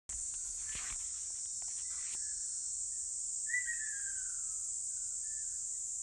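A steady high-pitched insect chorus, with a bird giving one falling whistled call about three and a half seconds in and a few faint ticks in the first two seconds.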